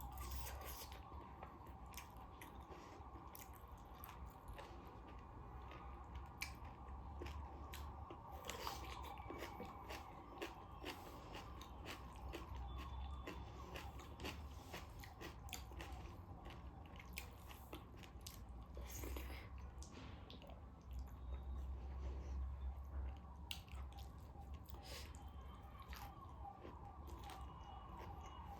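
Close-up eating sounds of taro root and dried meat: chewing and biting, with scattered crunches and small clicks, over a steady background hum.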